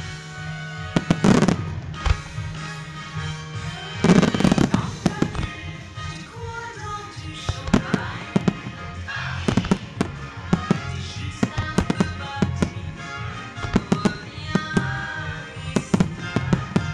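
Aerial firework shells bursting over a bed of music: a loud burst about a second in, a heavier cluster at about four seconds, then a steady run of sharp bangs and crackles.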